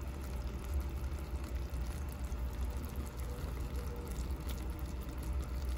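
Green-apple sugar syrup for hard candy boiling hard in a metal pot, a steady bubbling and crackling with a constant low rumble underneath.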